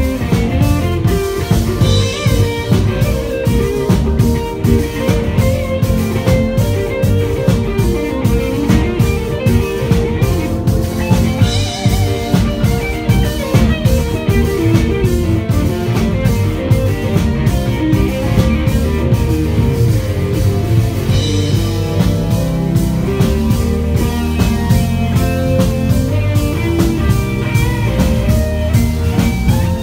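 Live rock band playing an instrumental passage: electric guitar and keyboard over a drum kit keeping a steady beat, with a cymbal crash about every nine to ten seconds.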